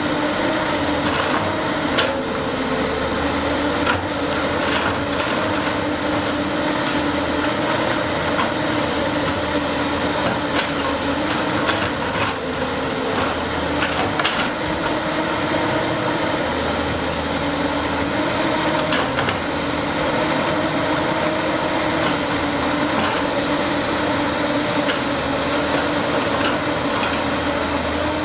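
CAT 320C excavator's diesel engine running steadily under load while it digs, with a few sharp clanks of the bucket striking rock and stony mud.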